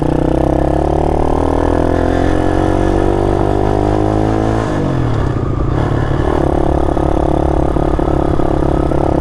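Mini motorcycle's small single-cylinder engine under way, rising steadily in pitch as it accelerates for about four and a half seconds. It then drops in pitch and settles to a steady cruising note.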